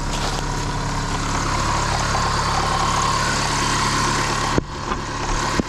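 Car engine idling steadily, with a steady higher whine over it; the sound drops out briefly about four and a half seconds in.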